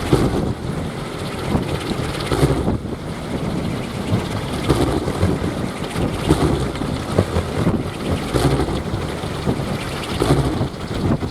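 Kolecer, large wooden wind propellers, spinning fast in strong wind: a loud, dense, whirring drone that swells and falls with the gusts, with wind buffeting the microphone.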